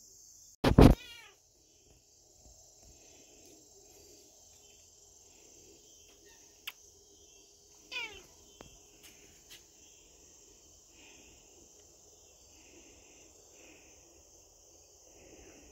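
Black domestic cat meowing: a very loud meow close to the microphone about a second in, and a falling meow about eight seconds in. Crickets chirr steadily behind.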